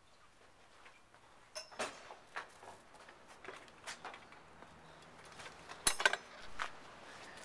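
Footsteps on a hard floor with scattered clicks, and the metal latch hardware of a wooden door clacking as the door is opened; the loudest is a quick pair of sharp clacks about six seconds in.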